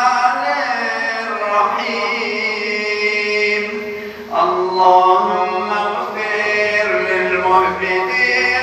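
A man chanting solo in Arabic, holding long ornamented notes that waver and bend in pitch. The voice briefly drops away about four seconds in, then resumes.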